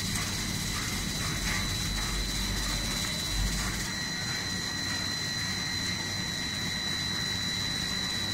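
Snack pellet forming and cutting machinery running, a steady mechanical noise with a constant high-pitched whine. A low rumble underneath drops away about four seconds in.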